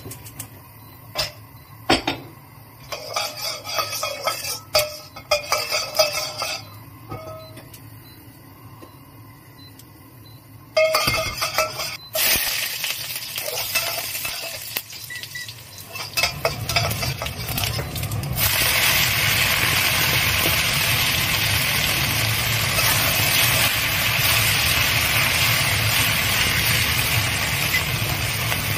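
Metal spatula scraping and clinking in an iron wok as lard melts. About eleven seconds in, sizzling starts as minced garlic fries in the hot fat. From about eighteen seconds in, there is a loud, steady hiss of water spinach stir-frying over high heat, with a low rumble underneath.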